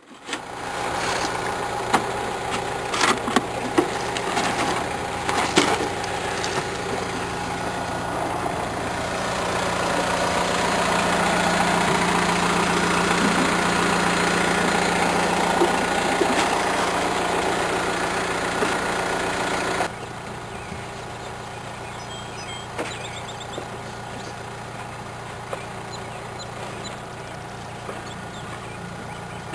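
Vehicle engine running steadily at idle, with scattered knocks in the first few seconds. About twenty seconds in it drops to a quieter steady engine hum.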